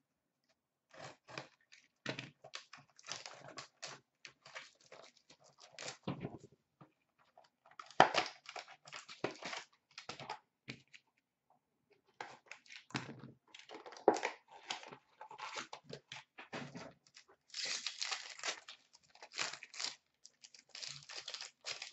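A cardboard trading-card box and its foil pack being torn open by hand, with crinkling wrapper and rustling packaging in irregular bursts. The loudest rips come about eight seconds in, around fourteen seconds, and near eighteen seconds.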